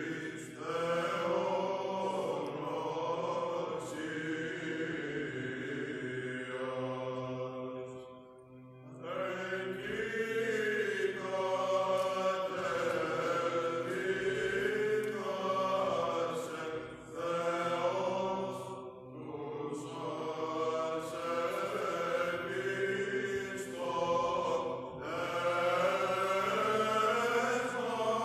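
A group of male Greek Orthodox chanters singing Byzantine chant in unison over a held low drone, the ison. The melody pauses briefly about a third of the way in and at a few later phrase breaks.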